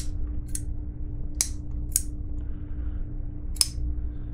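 Button-lock folding knife being opened and closed by hand, the blade snapping open and shut with five sharp, irregularly spaced clicks.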